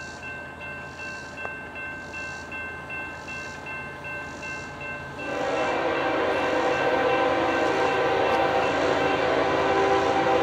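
Horn of an approaching CSX freight locomotive sounding one long blast, a held chord of several notes that starts about five seconds in and keeps on to near the end.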